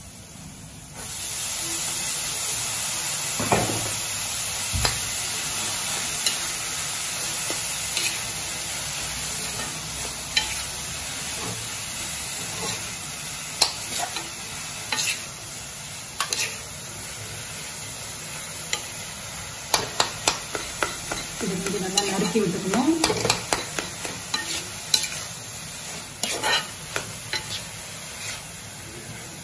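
Shredded banana stem sizzling as it is sautéed in an iron kadai, with a metal spatula clicking and scraping against the pan as it is stirred. The frying hiss comes in about a second in; the spatula strokes come more often in the second half.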